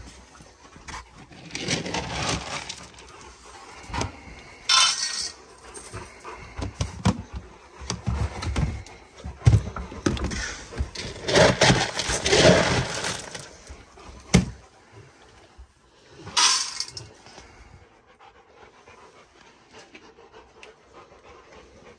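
Rottweilers panting while dry dog food rattles into their bowls in several separate pours, each a short burst of rattling, with the sound dropping away for the last few seconds.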